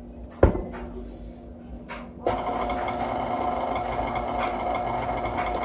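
A single sharp knock about half a second in, then a KitchenAid tilt-head stand mixer's motor switches on suddenly about two seconds in and runs steadily with a whine, its paddle beating flour into the wet dough.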